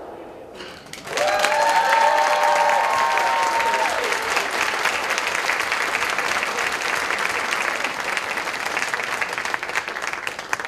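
Audience applause breaking out about a second in after a short lull, with cheering voices whooping over its first few seconds, then steady clapping.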